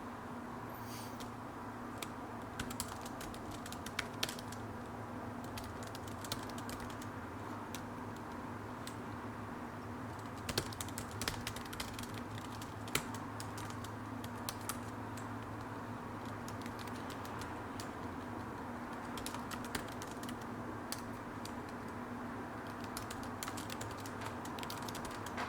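Typing on a computer keyboard: keystrokes come in irregular runs with short pauses between, over a steady low hum.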